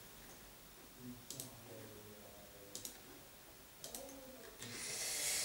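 A few faint computer mouse clicks, three quick double clicks spread out about a second or more apart, with soft mumbling and a breath drawn in near the end.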